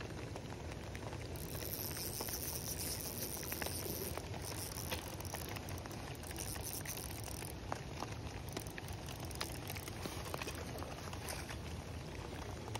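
Steady rain pattering on pond water, with many small drop ticks. A high hiss joins about one and a half seconds in and stops about seven and a half seconds in.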